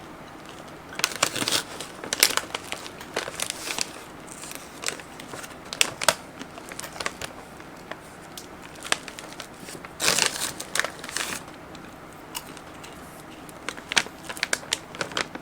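Crinkling of a candy bag of freeze-dried caramel M&M's as it is handled, in four short bursts of sharp crackles a few seconds apart.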